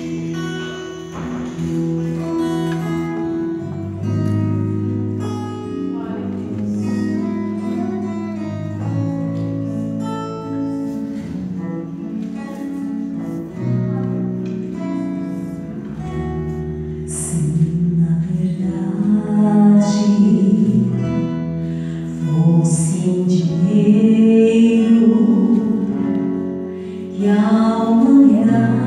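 Acoustic guitar playing a slow chordal introduction to a worship song; about 17 seconds in, a woman's voice comes in singing over the guitar.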